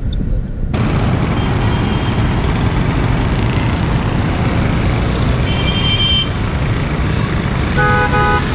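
Busy road traffic: a steady mix of engines and tyre noise, with short horn toots about six and eight seconds in.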